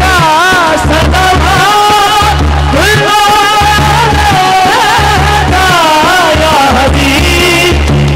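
Devotional naat music over a sound system: an ornamented, wavering melody line over a steady, repeating low drum beat.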